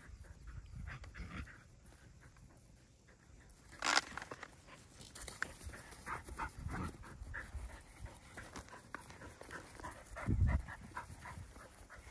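Dogs panting as they run and play, in many short quick breaths. A sharp loud noise comes about four seconds in and a low thump near the end.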